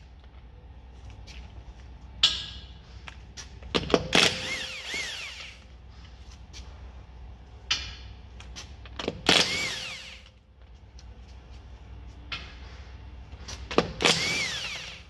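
Cordless impact wrench spinning off wheel bolts in three bursts of about a second each, roughly five seconds apart, its pitch rising and falling in each burst, with small clicks between.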